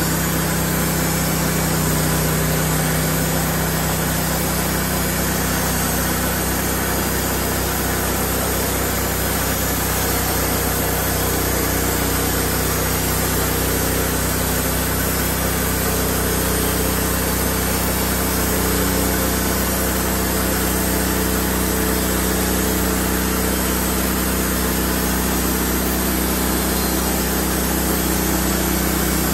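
Honda petrol engine on a portable bandsaw sawmill running steadily under load while the band blade saws lengthwise through a log.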